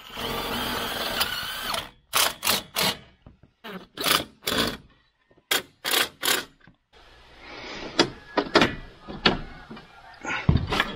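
Hands-on work fitting a solar panel into its mounting frame: a steady whir for about two seconds, then a run of sharp knocks and clunks, several in quick groups of two or three, with a few more scattered knocks near the end.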